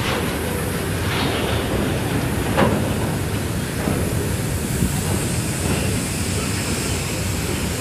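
Open-top box wagons of a long freight train rolling past: a steady rumble of steel wheels on the rails, with sharper wheel clicks a little over a second in and again about two and a half seconds in.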